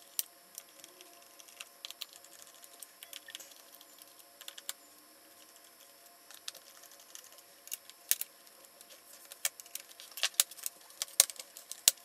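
Scattered small clicks and taps of a screwdriver working the screws of a laptop's plastic rear service panel, then louder, closer-together plastic clicks in the last few seconds as the panel is pried up off its clips.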